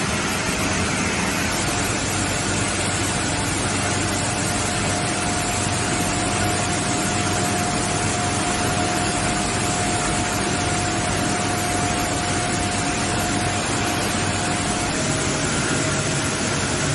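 Machinery of a PET bottle recycling washing line running steadily: a loud, even industrial noise with a faint steady whine.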